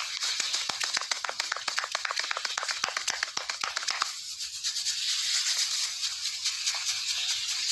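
ASMR barber hair cracking, picked up by microphones on the barber's arms: a rapid run of sharp crackling snaps for about four seconds, then quieter scattered crackles over a steady hiss.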